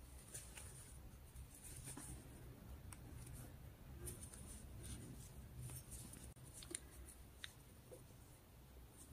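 Faint rustling and scratching of cotton yarn drawn through stitches by a metal crochet hook, with a few soft ticks.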